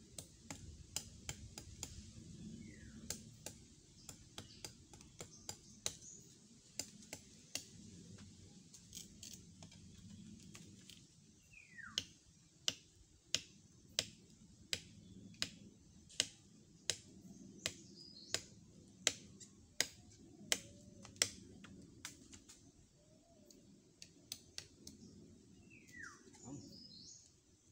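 Bolo knife chopping into a palm trunk: repeated sharp blade strikes, light and irregular at first, then a steady run of harder chops about one and a half a second, before easing off again.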